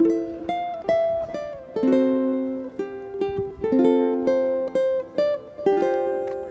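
Ukulele instrumental music: plucked chords and melody notes, each struck and dying away, with no singing.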